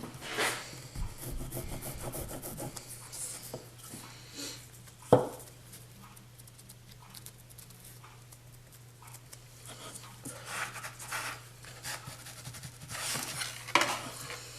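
Damp star composition being rolled flat over brass rod guides, giving intermittent rubbing and scraping, with one sharp knock about five seconds in.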